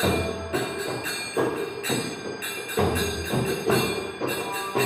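Kirtan (devotional chanting music) with small hand cymbals ringing on a steady beat, a stroke a little under every second.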